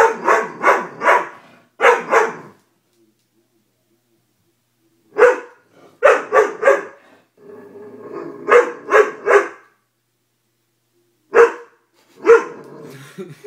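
Doberman barking in quick volleys of two to four barks, with silent pauses of a second or two between them, and a low growl between volleys about eight seconds in.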